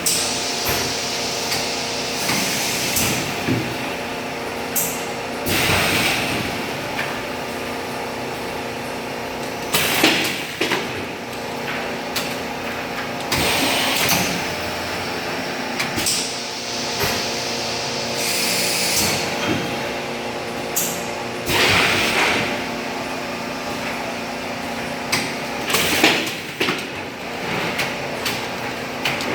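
Gas flush packaging machine running with a steady mechanical hum. Every three to four seconds its cycle brings a short hissing burst, and now and then a sharp knock.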